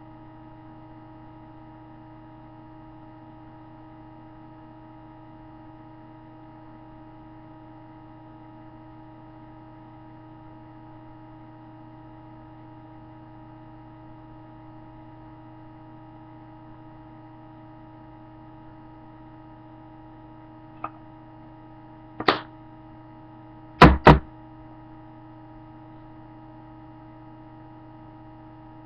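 Steady electrical hum. Late on comes a faint click, then a sharper knock, then a quick pair of louder knocks.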